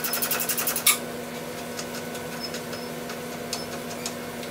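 15 mm ratcheting wrench clicking rapidly as it backs out a brake caliper bracket bolt on a Polaris RZR rear hub; the clicking stops about a second in. After that there is only a steady low hum and a few faint ticks.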